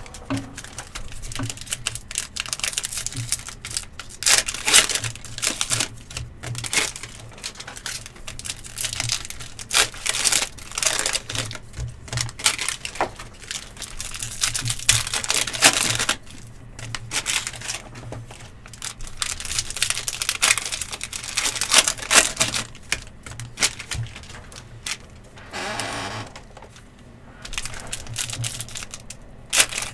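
Sports trading-card packs being opened and handled: crinkling wrappers and quick clicking, flicking cards, coming in dense, irregular bursts with short lulls.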